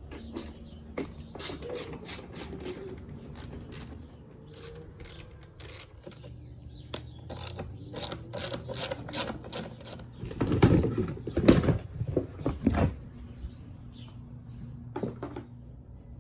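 Ratchet wrench clicking in quick runs as the bolts holding an ATV's rear fender are undone, with a louder cluster of knocks and rattles about ten to thirteen seconds in.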